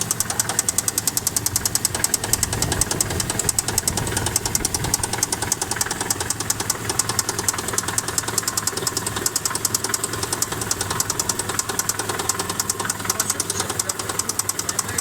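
Mitsubishi engine running with a fast, even ticking knock over its steady hum: an unexplained extra knock from inside the engine.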